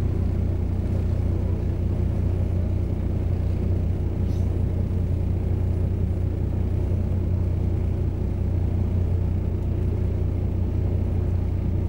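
A motor running steadily: a low droning hum over a constant rumble, with no change in pitch or level.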